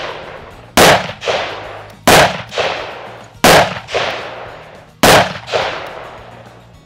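Smith & Wesson 460 XVR revolver in .460 S&W Magnum firing four loud shots, about one every one and a half seconds. Each shot is followed about half a second later by a softer echo that trails away.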